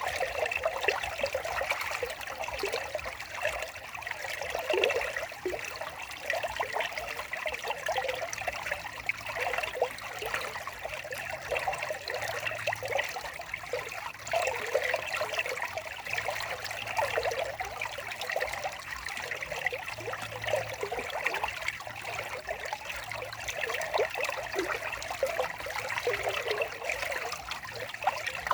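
Running water trickling and babbling steadily, as of a small stream.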